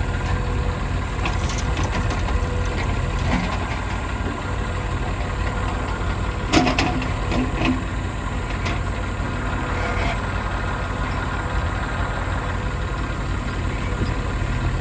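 Diesel engine of a JCB 3DX backhoe loader running steadily with a low rumble. A sharp metallic knock about six and a half seconds in, followed by a couple of lighter knocks, is the loudest sound.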